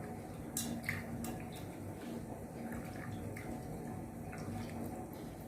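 Water dripping and splashing in small drops and trickles as tulsi (holy basil) leaves are rinsed by hand, with a few sharp clicks in the first couple of seconds, over a steady low background hum.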